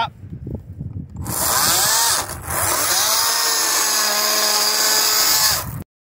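Kobalt 40V brushless cordless chainsaw starting up about a second in and cutting cedar wood, its motor whine dropping and recovering in pitch under load. It then runs steadily and cuts off suddenly near the end.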